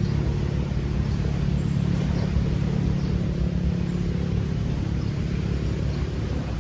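An engine running steadily at a distance, a low hum that eases slightly toward the end.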